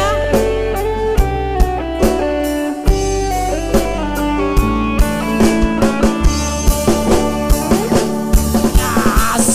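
Live dangdut band playing an instrumental passage: electric guitars and keyboard over a steady drum beat.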